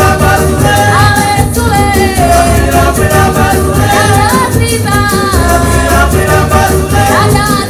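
Tanzanian traditional music played live: singers with gliding melodic lines over hand-shaken rattles and drums, with a heavy low bass pulse.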